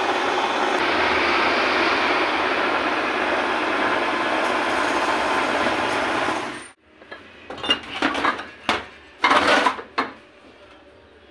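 Metal lathe running with a meat grinder's feed screw turning in its chuck: a loud, steady mechanical running noise that cuts off suddenly about two-thirds of the way through. Then several sharp metal knocks and a short clatter as metal parts are handled on the bench.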